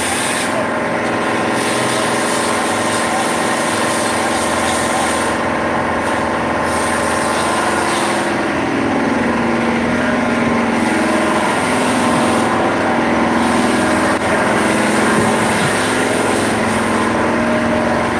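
A small engine or motor running steadily, its lower pitch shifting and growing stronger about eight seconds in.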